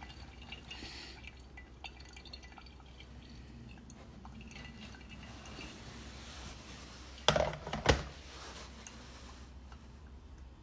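Coffee slowly dripping and trickling through a brewer, faint, with two short knocks close together about seven seconds in.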